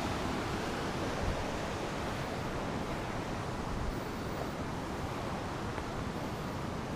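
Whitewater rapids on a rocky river, a steady rushing noise with no break.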